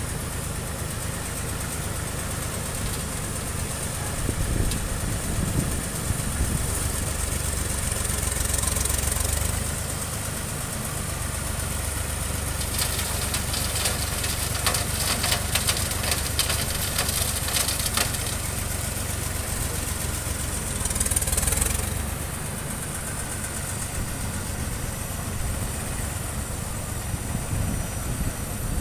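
Engine of a vintage road-construction machine running at a steady idle. A rapid clatter of ticks comes in for several seconds around the middle, and there are two brief hisses.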